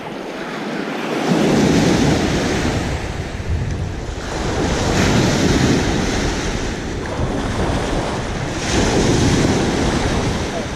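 Lake waves breaking and washing up a sandy beach, three surges a few seconds apart, with wind rumbling on the microphone.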